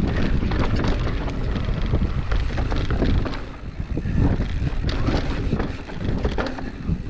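Wind rushing over the microphone as a Pivot Switchblade mountain bike descends a rough downhill trail, with the bike rattling and knocking over roots and bumps throughout.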